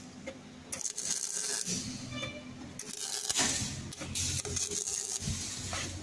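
Electric welding arc crackling and sputtering in uneven bursts, over a steady low electrical hum.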